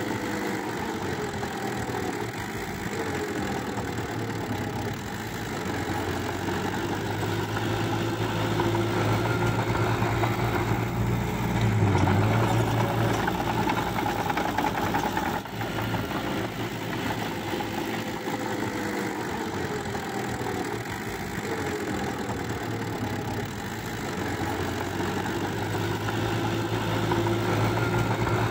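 Small crawler bulldozer's diesel engine working under load as the blade pushes wet soil and grass, its pitch rising and falling with the throttle. It grows louder about a third of the way in and again near the end.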